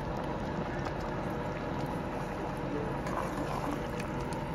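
Vegetables in tomato pasta sauce bubbling and sizzling steadily in a pot, with a faint crackle, as a spatula stirs them.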